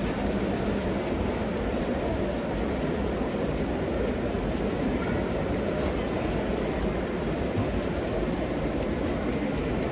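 Model train running on an exhibition layout, a rapid string of light clicks from its wheels on the track over the steady din of a busy show hall.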